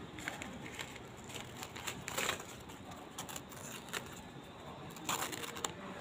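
Newspaper rustling and crinkling as it is pulled off a wrapped plant cutting by hand, with louder crackles about two seconds in and again near the end.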